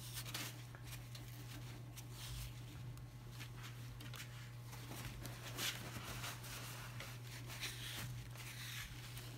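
Cloth rag rubbing and rustling in short, irregular swishes against a clamped, freshly glued wooden block and the plastic sheet beneath it, as squeezed-out wood glue is wiped away. A steady low hum sits underneath.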